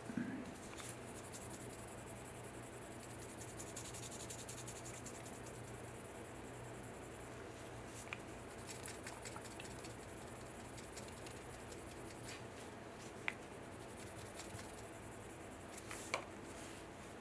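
Sanding sponge rubbed back and forth over a 3D-printed resin diamond: a faint, dry scratching, with a light knock at the start and a few sharp ticks later on.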